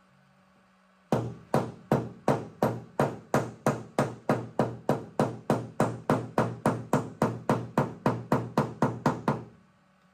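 Paintless dent repair tapping: a hammer striking steadily on the car's metal body panel, about three even taps a second, each ringing briefly. The tapping starts about a second in and stops shortly before the end.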